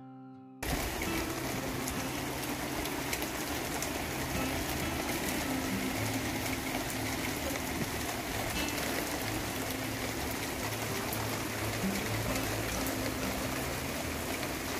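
Heavy rain pouring down in a steady, even hiss. A strummed acoustic guitar chord fades out in the first moment before the rain comes in.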